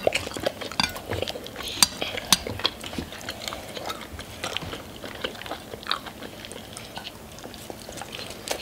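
Close-up eating sounds: chewing and biting on chicken wings and noodles, with forks and spoons clicking against bowls and plates in many small sharp ticks, a few louder in the first couple of seconds.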